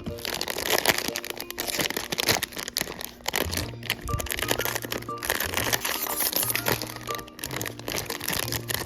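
Packaging being handled and opened, with irregular crinkling and crackling, over light background music with a repeating bass note.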